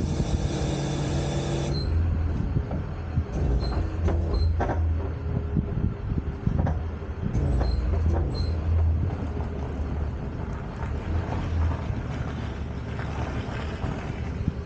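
Tow truck engine running as the truck backs its wheel-lift up to a parked car, with occasional metal clanks and a few short high beeps. Music plays over the first couple of seconds.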